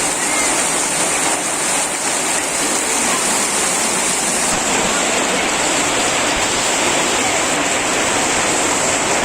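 Torrential rain from a Kalbaishakhi (nor'wester) storm pouring down as a steady, dense rush of noise.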